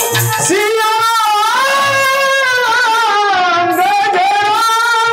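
Rajasthani folk bhajan: a male singer holds a long, wavering sung phrase over a steady harmonium drone, with dholak beats underneath.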